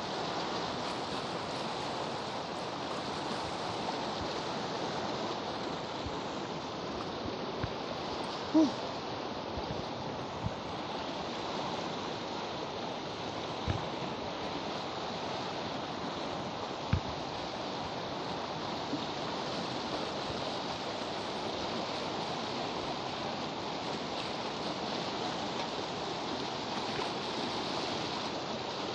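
Fast, muddy river rushing steadily below a log footbridge. A few brief knocks cut through the water, the loudest a single thump a little over eight seconds in.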